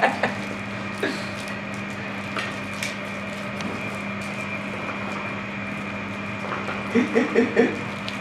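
Shisha water pipe bubbling steadily as smoke is drawn through the hose, over a steady electrical hum, with a few faint clicks. A voice speaks briefly near the end.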